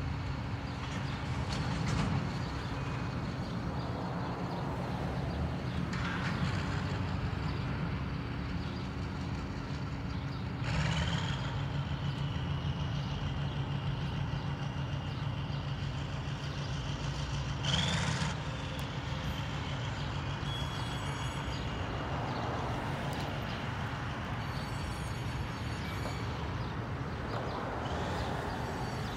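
Diesel shunting locomotive running steadily with a low drone. A long high-pitched squeal starts about eleven seconds in and holds for about seven seconds, with a short hiss at its start and at its end.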